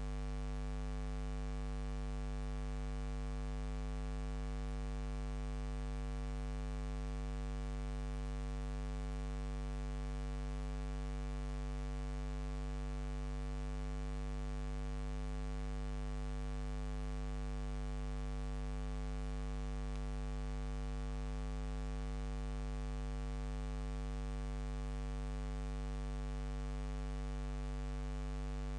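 Steady electrical mains hum with a stack of overtones and an even hiss, unchanging throughout. It does not change when the picture cuts, so it is noise on the transfer's soundtrack rather than sound from the filmed scenes.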